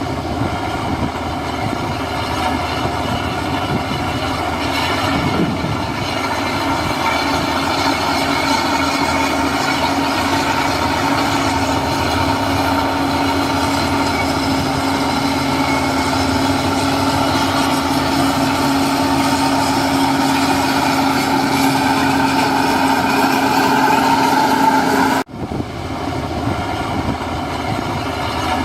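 Heavy earthmoving machinery running steadily: a diesel engine with a mechanical clatter. The sound breaks off sharply about 25 seconds in and starts again at once.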